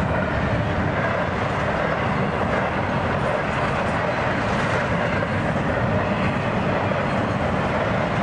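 Double-stack intermodal well cars of a freight train rolling past: steady noise of steel wheels running on the rails.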